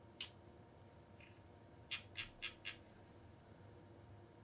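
Faint clicks at a computer: one shortly after the start, then four in quick succession about two seconds in, over a quiet room hum.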